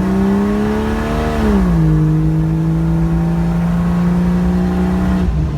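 Jeep Cherokee XJ engine running while driving, heard as a steady drone. Its pitch falls about a second and a half in, then holds level at the lower note and dips again near the end.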